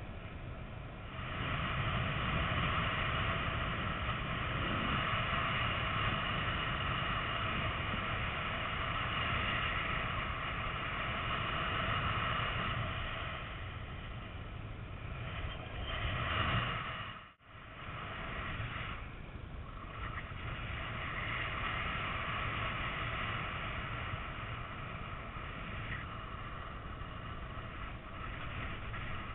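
Steady rush of flight airflow buffeting a GoPro's microphone on a flying paraglider. It swells and then cuts out for a moment a little over halfway through.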